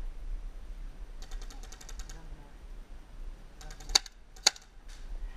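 Paintball markers firing in rapid bursts of about ten shots a second, a run about a second in and another near four seconds, with two louder, sharper cracks just after the second run.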